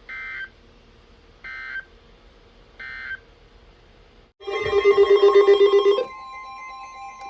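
Three short bursts of EAS data tones, the end-of-message signal of an Emergency Alert System warning. About four and a half seconds in, a loud warbling electronic tone sounds for a second and a half, then gives way to a steady electronic tone of two pitches.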